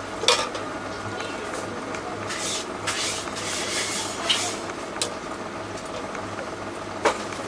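Steady hum of kitchen appliances, with two sharp clicks of a spoon against steel trays, one shortly after the start and one near the end, and a few short scraping sounds in between as toppings are spooned into foam boxes.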